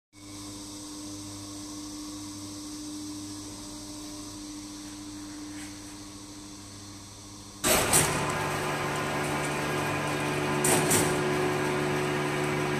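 Automatic skin vacuum packing machine running. At first it is a steady low hum. About eight seconds in it turns suddenly louder and fuller, with a pair of quick clacks, and another pair comes near the end as the tray conveyor moves.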